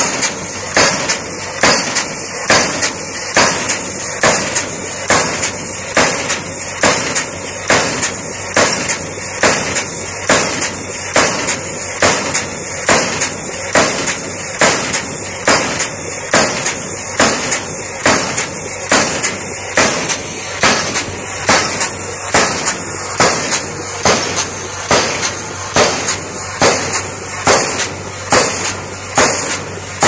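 Steam hammer of a pile driver striking a wooden pile in a steady rhythm, a little more than one sharp blow a second.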